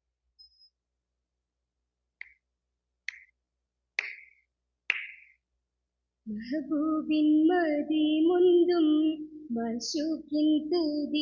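Four single hand claps about a second apart, each louder than the last, then girls' voices start singing the Malayalam Mappila song of an Oppana dance about six seconds in, with held, wavering notes.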